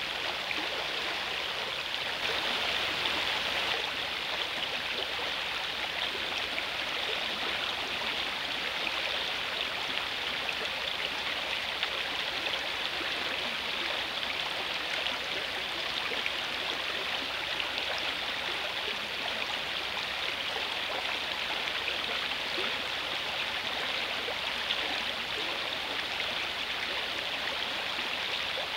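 Shallow river water rushing steadily over a stony riffle close by.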